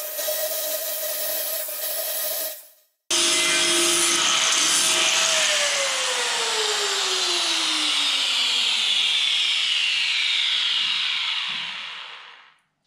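Plasma cutter hissing through a rusty steel box-section beam with a steady whine, stopping abruptly about two and a half seconds in. After a brief gap, a loud whirring noise starts whose tone slides steadily down in pitch over several seconds before fading out near the end.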